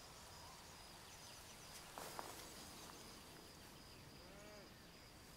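Near silence: faint meadow ambience with a steady, high-pitched insect trill, and a soft brief sound about two seconds in.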